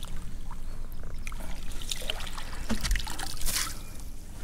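Water splashing as a hooked smallmouth bass is scooped into a landing net, with light knocks of gear against the boat. About three seconds in comes a short rush of water pouring off the net as it is lifted from the river.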